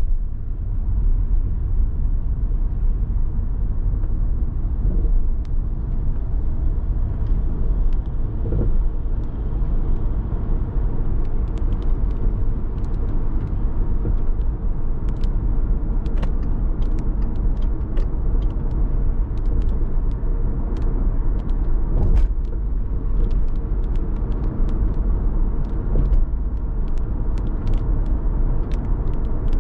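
Car driving through city streets: a steady low rumble of road and engine noise. From about ten seconds in, scattered sharp ticks come through it and grow more frequent.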